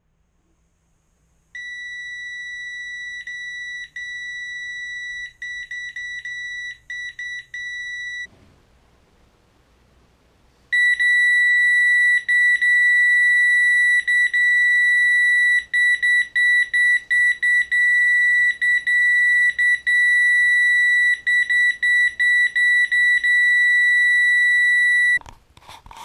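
Power wheelchair joystick controller's horn buzzer sounding a steady high-pitched beep, held down for long stretches and pressed in quick runs of short toots. A fainter first stretch stops about eight seconds in, and after a short gap a much louder second stretch runs until near the end.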